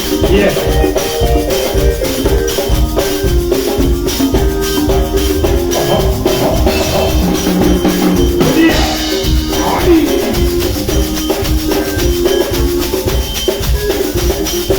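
A live band playing instrumental music, with a steady drum beat, a shaker and a repeating melodic line.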